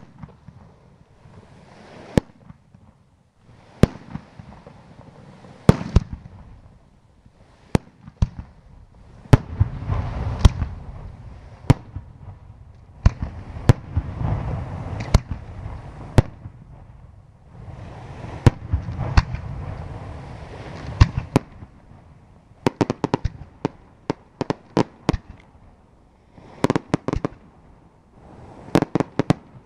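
Aerial firework shells from a Raffaele Fireworks night display bursting with sharp bangs. The bangs come singly, then in quick clusters near the end, between longer stretches of rumble and crackle.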